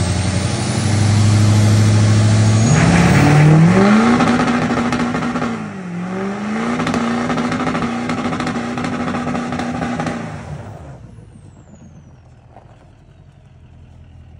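L5P Duramax diesel in a lifted GMC Sierra HD Denali doing a burnout, the rear tyre spinning and smoking. The engine climbs to high revs about three seconds in, dips briefly around six seconds and climbs back, then drops off about ten seconds in.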